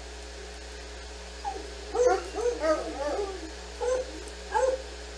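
Dog yipping and whining: a quick run of short calls that rise and fall in pitch about two seconds in, then two more single yips near the end.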